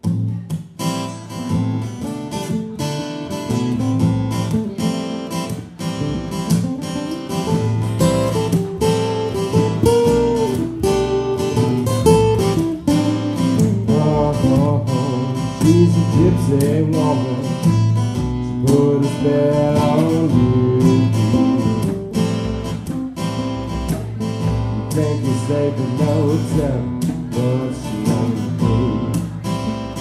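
Acoustic guitars strummed in a live country song, starting suddenly at the beginning, with a pitched melody line wavering above them through the middle.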